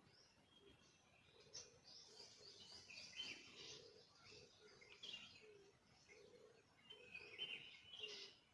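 Faint bird calls: many high, quick chirps and twitters, over a low short note repeated about twice a second.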